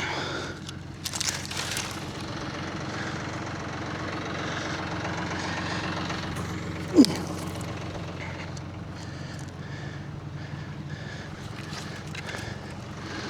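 Tractor engine idling steadily, with some clicks and rustling early on and one short, sharp sound falling in pitch about seven seconds in.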